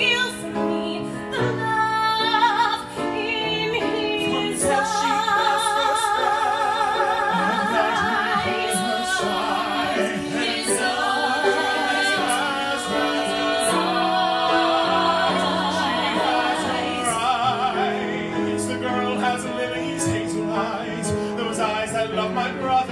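Mixed vocal quartet of two women and two men singing a choral arrangement in harmony, with long held notes sung with vibrato.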